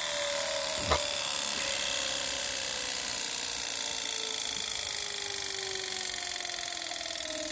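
Treadmill DC motor coasting down with its power switched off, its whine falling slowly and steadily in pitch. A single click about a second in.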